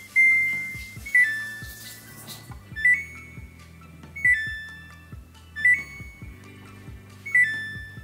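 Control-panel beeps of a Samsung WW90K5410UX washing machine as its buttons are pressed: one longer beep just after the start, then five short two-note beeps, high then lower, about every one and a half seconds. Background music with a steady beat plays underneath.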